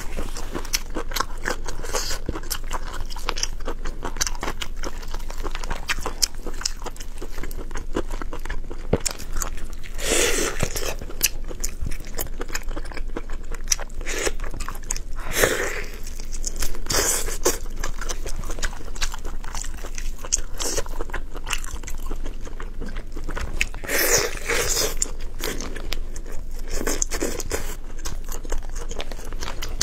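Close-miked eating of braised pork knuckle: continuous chewing, biting and wet mouth smacks, with a few louder bites spread through.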